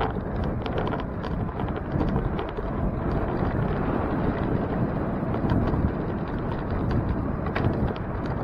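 Wind buffeting the microphone of a moving bicycle's camera, over a steady low rumble of tyres on pavement, with many small clicks and rattles scattered throughout.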